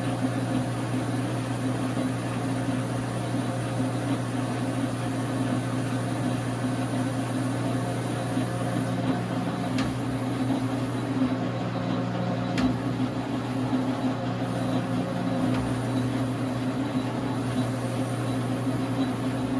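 Dar Sin 12x37 gap bed lathe running steadily under power, its motor and gearing giving a constant hum, with two sharp ticks about three seconds apart halfway through.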